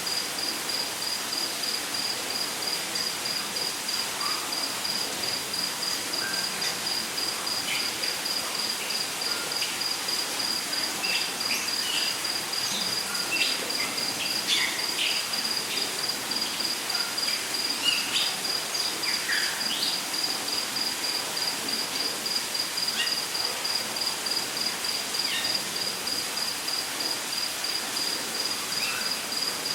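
Rainforest ambience: an insect calls in an unbroken train of evenly spaced high-pitched pulses, with scattered short bird chirps and whistles over a steady background hiss.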